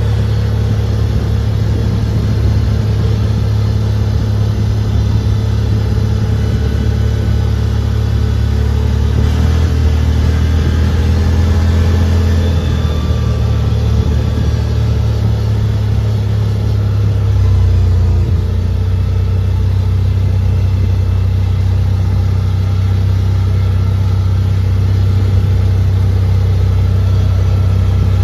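CFMoto ZForce 950 side-by-side's V-twin engine running steadily while driving, heard from inside the cab as a loud low drone. The engine note dips about a third of the way in and picks up again past halfway.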